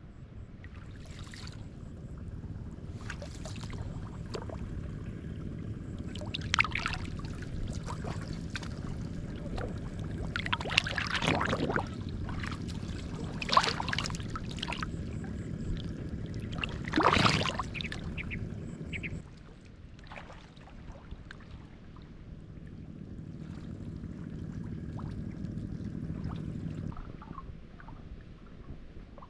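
Shallow water splashing and sloshing as someone wades and gropes through it by hand, with several louder splashes in the middle.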